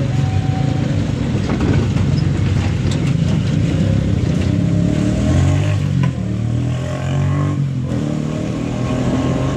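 A motor vehicle's engine running steadily at a low pitch while it travels along.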